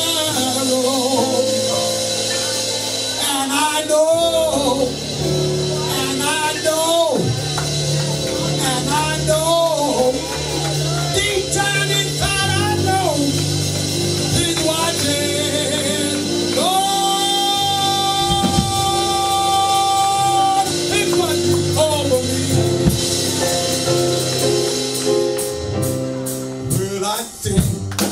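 A voice singing a slow gospel melody into a microphone over a live church band's sustained keyboard chords, holding one long note about seventeen seconds in. Sharper percussive hits come in near the end.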